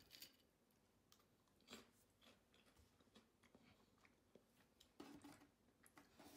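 Hina-arare, small puffed rice crackers, being chewed: a few soft, scattered crunches and clicks, the strongest about two seconds in and again near the end.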